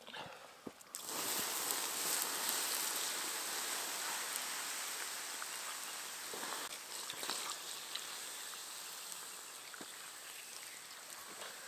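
Campfire coals hissing and steaming as lake water is thrown on them to douse the fire. The hiss starts suddenly about a second in and slowly dies away, with a few faint clicks.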